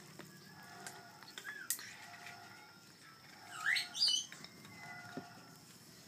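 African grey parrot chick making food-begging calls between syringe feeds: faint wavering cries, then two louder rising squawks about four seconds in.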